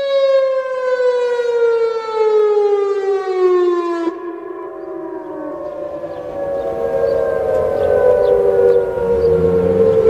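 Whelen 2910 electronic outdoor warning siren sounding a wailing test tone whose pitch falls slowly. About four seconds in, the bright upper part of the tone drops away and a duller, lower tone carries on falling.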